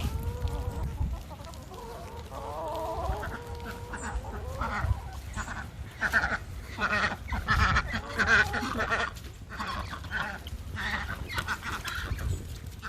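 Backyard poultry calling: drawn-out, steady-pitched calls over the first few seconds, then a run of short clucking and honking calls.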